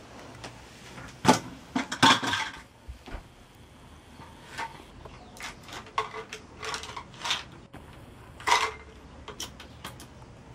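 Irregular knocks and clicks of things being handled at a wooden bedside cabinet, with the loudest knocks about a second in, about two seconds in and near the end.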